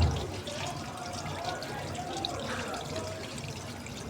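Water pouring and trickling steadily out of a dishwasher booster tank through the opening of its removed heating element as the tank drains, with a short low thump right at the start.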